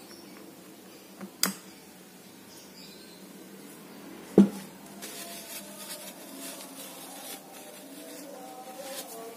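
Small metal fishing-reel parts being handled and set down during disassembly: a sharp click about a second and a half in, then a louder clink with a brief ring about four and a half seconds in, with faint handling rattles between.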